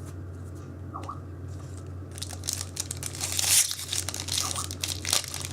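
Foil wrapper of a Yu-Gi-Oh! booster pack being torn open and crinkled, starting about two seconds in, over a steady low hum.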